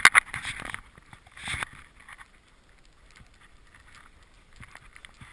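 Rustling and scraping handling noise on the camera's microphone, dense and crackly for about the first second with another short burst about a second and a half in, then only faint rustles.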